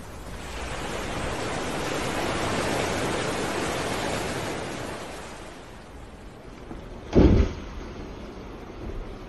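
Humpback whale breaching at sea: a rushing noise swells and fades, then one heavy low thump about seven seconds in as the whale crashes back into the water.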